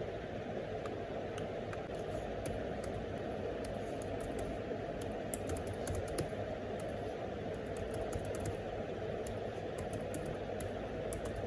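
Typing on an HP laptop keyboard: an irregular run of quick key clicks over a steady low room noise.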